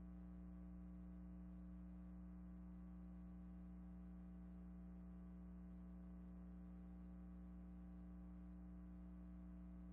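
Near silence: a faint, steady hum of a few low tones with no other sound. The film has no soundtrack.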